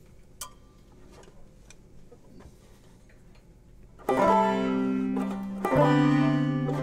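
After about four quiet seconds, background instrumental music starts abruptly: a plucked-string tune with picked notes over held chords, changing chord about a second and a half after it begins.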